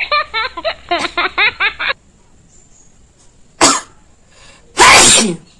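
A person sneezes loudly near the end, with a short sharp burst about a second before it. At the start there is a quick run of short, pitched, voice-like sounds lasting about two seconds.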